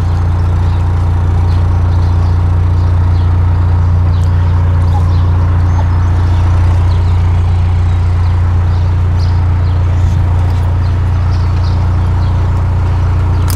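Narrowboat's diesel engine running steadily while the boat cruises, a constant low drone.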